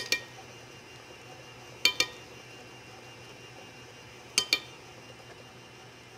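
A metal spoon is tapped twice against the rim of a stand-mixer bowl, three times over (at the start, about two seconds in, and about four and a half seconds in), knocking roasted sweet potato off it; each tap is a sharp clink with a short ring. Under the taps runs the low steady hum of the stand mixer.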